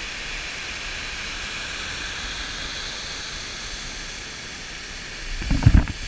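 Steady rush of a waterfall, an even hiss with no rhythm to it. Near the end a few low thumps hit the microphone.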